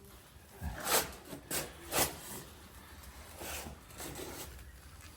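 A few short swishes, about four, as wet lime plaster is worked on a wall by hand to give it an aged, swirled finish.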